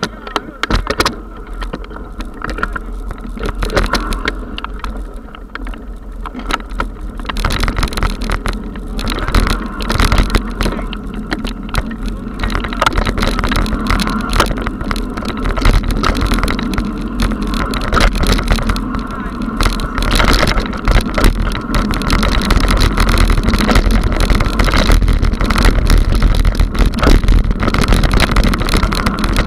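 Mountain bike rolling over a rough dirt track: tyres crunching on dirt and stones, and the bike and camera rattling and knocking over the bumps. It grows louder as the ride goes on.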